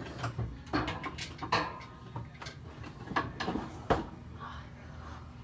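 Irregular knocks, taps and clatter of objects being handled, loudest about a second and a half in and again near four seconds, over a low steady hum.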